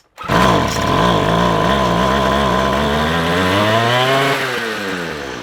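McCulloch 250C strimmer's two-stroke engine catching about a quarter second in and running with an unsteady, wavering pitch; its revs climb a few seconds in, then fall away as it slows near the end. It runs rough, "not very happy", which the owner puts down to a partly blocked jet in the carburettor.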